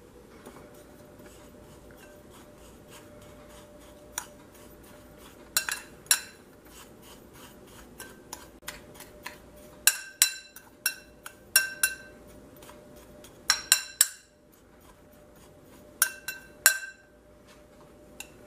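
Metal spoon stirring a dry spice rub in a white ceramic bowl, with sharp ringing clinks each time the spoon strikes the side of the bowl, in clusters of two or three every few seconds.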